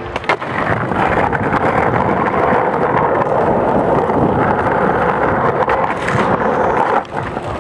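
Skateboard wheels rolling over rough asphalt: a steady rolling rumble that drops away about seven seconds in. A couple of sharp clacks near the start as the board comes down from a flip trick.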